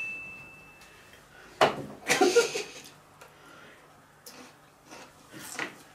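A high, clear ringing tone dies away over the first second. About a second and a half in there is a sharp knock, then a brief vocal sound from one of the tasters, followed by a few faint clicks.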